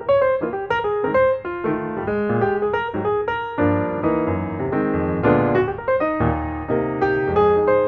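Background piano music, a steady flow of quick notes.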